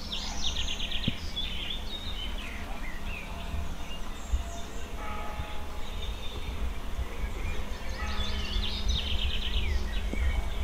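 Birds singing, with a songbird's quick trill of rapidly repeated high notes near the start and again near the end, over a steady low rumble.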